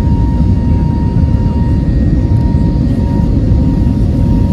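Airliner engines and airflow heard inside the passenger cabin during the climb after takeoff: a loud, steady low rumble with a thin steady whine above it.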